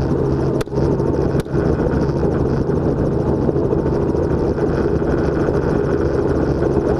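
Helicopter running steadily in flight, a continuous rotor and engine drone with a few very brief dips in level.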